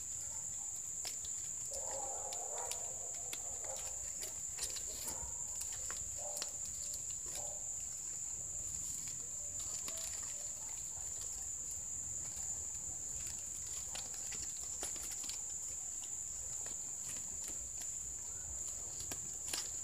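Steady high-pitched insect trilling, like crickets, with scattered light crackles and rustles of green coconut palm leaves being threaded through a woven basket by hand. A brief faint animal call comes about two seconds in.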